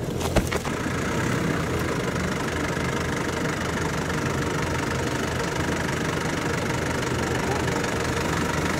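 Toyota Land Cruiser 40-series engine running steadily at low revs as the truck crawls over rough ground. A few sharp knocks come just after the start.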